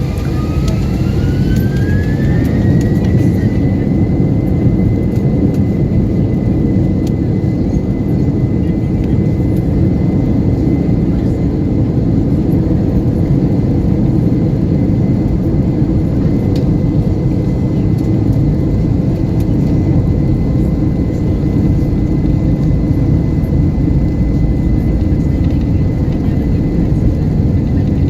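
Airbus A321 jet engines at takeoff thrust, heard from the passenger cabin: a loud, steady roar. Over it, a whine rises in pitch over the first few seconds as the engines spool up, then holds at one steady pitch.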